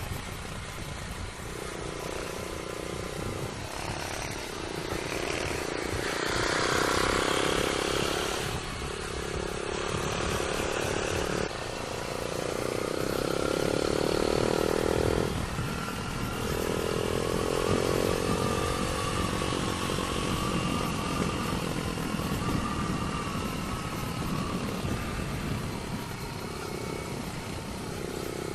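Yamaha YBR 125 motorcycle riding along, its engine note swelling and dropping several times as the throttle opens and closes, over a steady wind rumble on the microphone.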